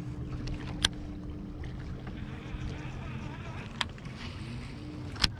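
Bow-mounted Minn Kota electric trolling motor humming steadily, holding the boat. A few sharp clicks come over it, about a second in, near four seconds and at the end.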